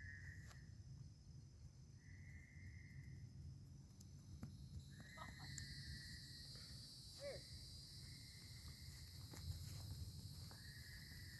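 Faint insect chorus of a summer night. A trilling call about a second long repeats every few seconds, and a steady high-pitched buzz joins about halfway through.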